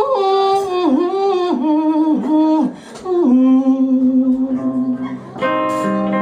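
A woman singing a slow, ornamented line, sliding and bending between notes, then holding one long low note. A guitar chord comes in near the end.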